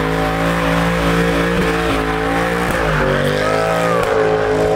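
A car engine held at high, steady revs, dipping briefly about three seconds in and climbing back, as the car spins its tyres at a street takeover.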